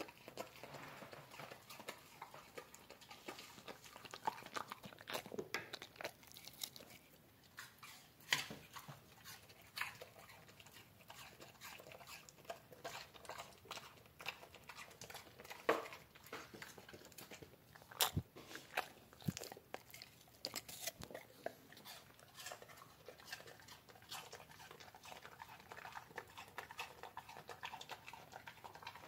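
A dog chewing and crunching on a chew, with irregular crunches and clicks and a few louder sharp cracks.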